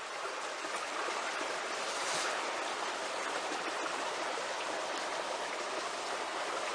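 Running water, a steady even rush with no breaks.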